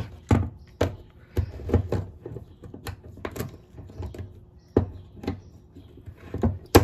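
A screwdriver and pliers prying and knocking at the hard plastic switch housing of a DeWalt 18 V drill, making irregular sharp clicks about every half second. The loudest click comes near the end. The part is tough to get apart.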